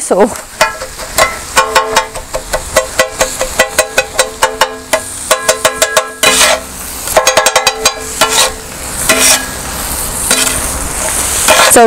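Two flat metal kothu blades chopping and scraping on a large flat metal griddle: quick runs of clanging strikes, each ringing briefly, over the sizzle of frying egg and vegetables. The blades are chopping scrambled egg into the vegetables, kothu-style. Near the end the strikes ease off and the sizzle stands out.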